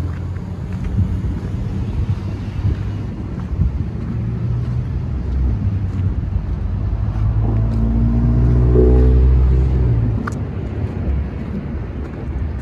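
Wind buffeting the microphone, with a car passing close by; its engine grows louder about two-thirds of the way in, then fades.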